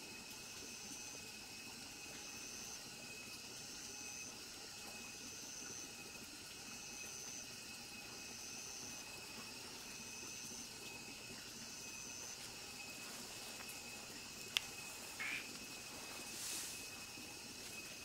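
Night insects calling at nightfall: a steady high trill and a repeated high call about every second and a half, over a steady hiss. The repeated call stops about twelve seconds in. Near the end a sharp click, a short chirp and a brief rush of noise.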